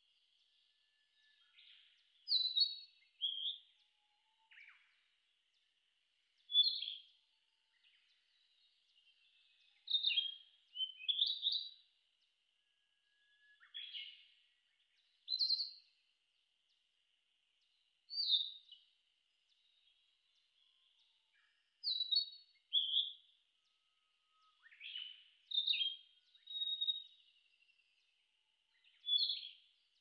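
Male narcissus flycatcher singing: short phrases of a few clear notes, many dropping sharply in pitch, repeated every two seconds or so. A faint steady high-pitched tone runs underneath.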